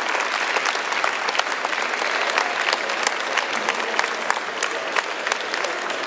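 Crowd applauding, many hands clapping at once.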